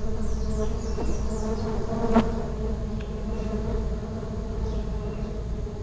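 Stingless bees buzzing steadily as a colony is disturbed while being moved into a hive box, with one sharp click about two seconds in.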